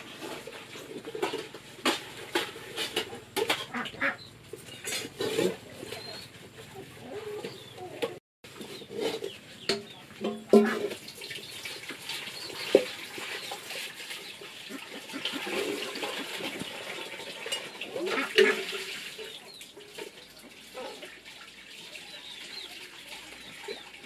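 Chickens clucking, with scattered short knocks and clicks.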